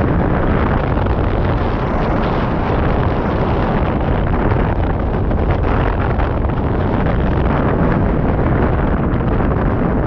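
Loud, steady wind buffeting the microphone of a camera mounted on a hang glider in flight: the rush of air past the glider at flying speed.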